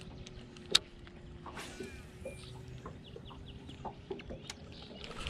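Scattered clicks and taps from handling a baitcasting rod and reel, the sharpest about three-quarters of a second in, over a faint steady hum.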